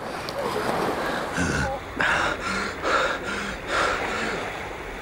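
A man gasping and panting hard for breath. From about two seconds in come loud breaths, roughly one a second.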